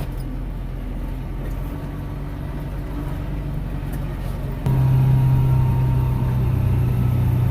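Kubota M6040 tractor's diesel engine running steadily under way. About two-thirds of the way through it turns suddenly louder and settles into a strong, steady low hum.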